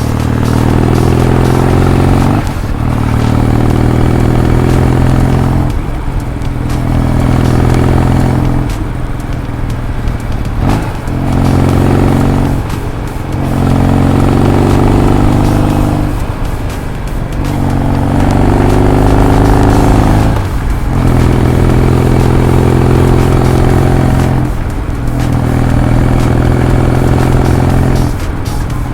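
Motor vehicle engine running on a drive, its steady note breaking off and changing every few seconds.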